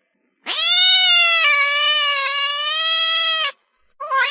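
Pet talking bird mimicking a cat's meow: one long drawn-out meow of about three seconds, with a second meow starting just before the end.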